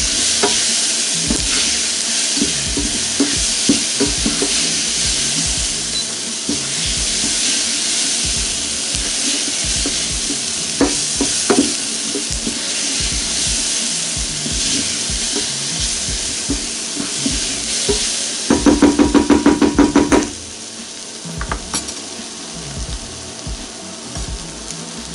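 Onions sizzling as they sauté in a stainless steel saucepan, stirred with a wooden spoon that scrapes and knocks against the pan. Near the end comes a quick run of about a dozen sharp ringing taps, after which the sizzle is quieter.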